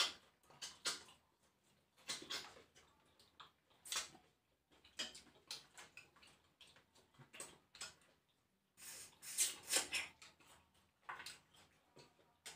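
Close-up eating sounds from people eating crab by hand: irregular wet smacking and sucking, with small clicks as crab shell is picked apart. There is a longer run of sucking and smacking about nine seconds in.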